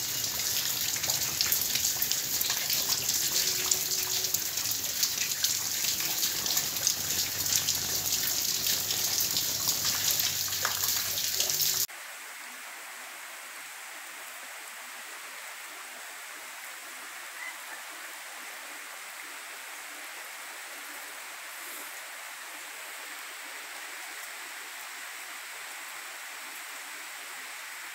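Heavy rain pouring down, a dense hiss full of the patter of drops; about twelve seconds in it cuts off to a much quieter, steady hiss of light rain.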